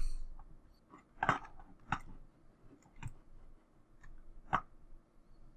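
A few separate computer mouse clicks, sharp and quiet, spaced irregularly about a second apart.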